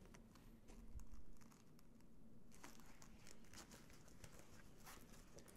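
Faint rustling of a fabric drop-down pouch being handled in gloved hands, a little louder for about a second near the start.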